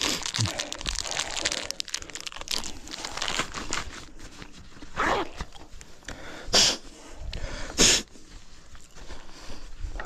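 Dirt and gravel crunching and crackling, with three short louder rushes of noise about five, six and a half and eight seconds in.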